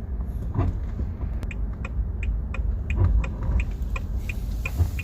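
Haval H9's turn-signal indicator ticking evenly, about three clicks a second, heard inside the cabin over the low rumble of the slowly moving SUV.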